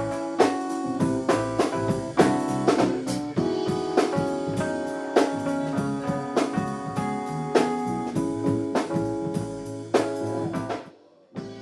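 A live band playing an instrumental passage on electronic keyboard, drum kit and electric guitar, with steady drum hits. The band stops together about eleven seconds in, and a guitar starts quietly on its own just before the end.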